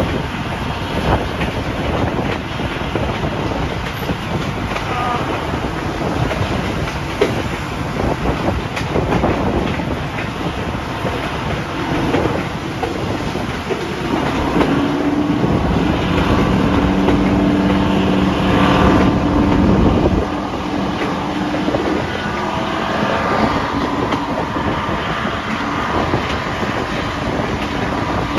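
Class 55 Deltic diesel locomotive's two Napier Deltic engines working under power, heard from an open carriage window along with the carriages' wheels clicking over the rail joints. About halfway through, a steady engine note comes up and grows louder for several seconds, then falls back.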